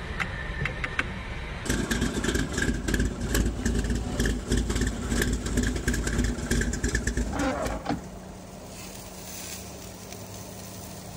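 A engine mounted on a stand, running through short open exhaust headers: a loud, rapid train of firing pulses starting about two seconds in. A little before eight seconds in it drops to a quieter steady hum.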